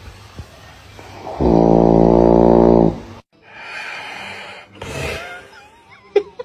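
A loud snore: one long, pitched, buzzing in-breath lasting about a second and a half, repeating a snore heard just before. After an abrupt cut come quieter mixed sounds, with a sharp click near the end.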